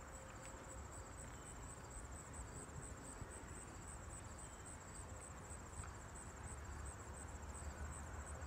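Insects chirping in a steady, high-pitched pulsing chorus, with a faint low rumble underneath.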